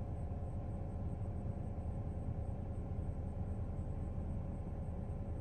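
Vehicle running with a steady low rumble.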